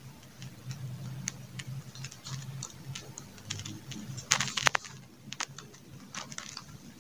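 A pen writing on lined notebook paper: short scratches and taps of the tip as letters are formed, with a louder cluster of clicks about four seconds in.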